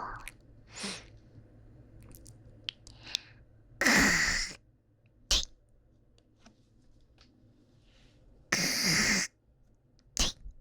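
Close-miked hawking and spitting, done twice: a long, harsh throat-clearing 'khak' that draws up phlegm, then a short sharp 'ptoo' spit about a second later.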